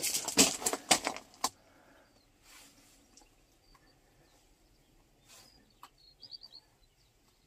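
Loud rustling and scuffing noise for about the first second and a half, then quiet with a small bird giving a quick run of faint high chirps near the end.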